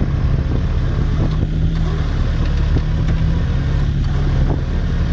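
Off-road 4x4 engine running steadily at a constant speed, a low, even hum with no revving.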